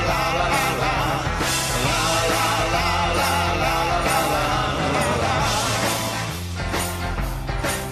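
Background rock song with a singing voice over a steady bass line.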